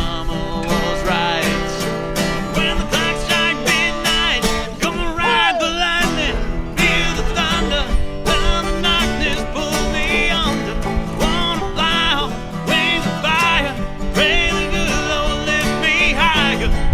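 Bluegrass string band playing, with banjo and acoustic guitar.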